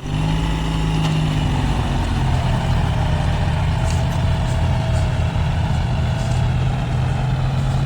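Diesel tractor engine running steadily at working revs, its pitch dropping slightly about two seconds in as it takes on load.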